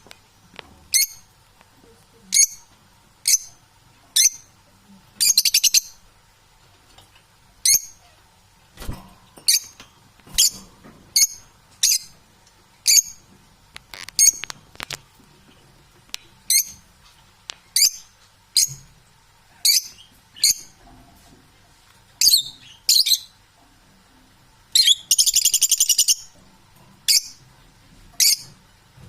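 Parrot calling: short, high-pitched chirps repeated about once a second, broken by two longer harsh screeches, the longer and louder one about 25 seconds in.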